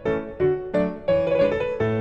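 Background music: a piano or keyboard melody, notes struck about two to four a second, each ringing briefly before the next.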